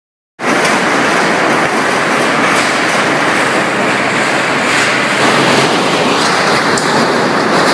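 Excavator with a demolition grapple tearing apart a corrugated-metal building: a loud, continuous din of grinding, clattering sheet metal and machinery that starts abruptly about half a second in.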